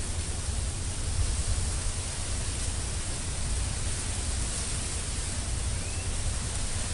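Steady wind noise on the microphone: a low, fluttering rumble under an even hiss.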